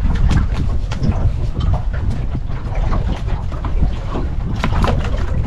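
Wind rumbling on the microphone on a small boat at sea, with scattered short knocks throughout.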